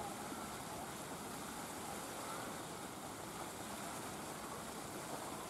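Steady low outdoor background noise, with a couple of faint short chirps.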